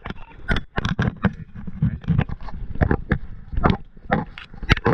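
Handling noise from a body-worn camera as its wearer moves: irregular knocks and rustles of gear bumping against it, a few a second, over a low rumble.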